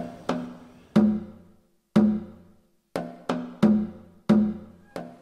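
Music of a pitched percussion instrument: single struck notes in an uneven rhythm, each ringing out briefly, with a couple of short pauses.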